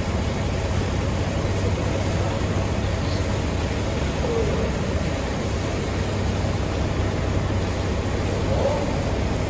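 An engine running steadily, a constant low drone with no change in pace, with faint voices in the background.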